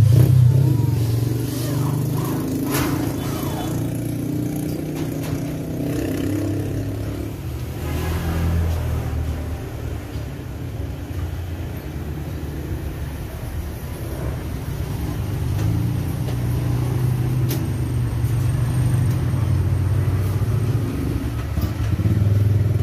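A motor vehicle engine running at a steady idle: a low hum that swells and eases slowly, with a few light knocks over it.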